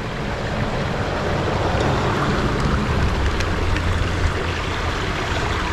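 Steady outdoor rushing noise with a strong low rumble, with a few faint ticks near the middle.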